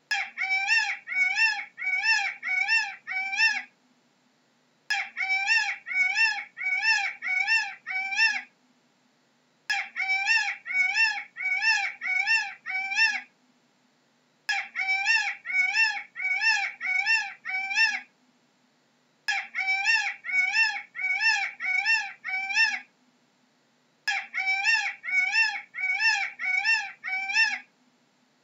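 Peacock calling in bouts: a run of about seven short, loud, wailing calls, two a second, each rising then falling in pitch. Each run lasts about three and a half seconds, with a brief pause between runs.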